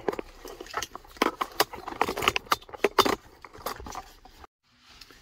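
Jumper cables from a portable jump starter kit being handled, their metal clamps clinking and rattling in a quick run of small clicks and knocks that thins out after about three seconds.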